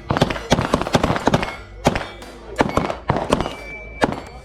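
Staccato 2011 pistols firing in quick strings, about a dozen sharp shots with short gaps, several of them close together.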